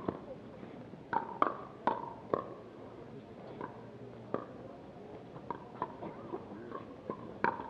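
Pickleball paddles hitting a plastic pickleball during a rally: sharp, hollow hits with a short ring. There is a quick run of loud hits in the first two and a half seconds, fainter hits after, and a louder one near the end.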